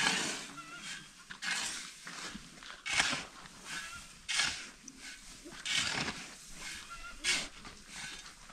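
An animal calling over and over, one short rasping call about every second and a half.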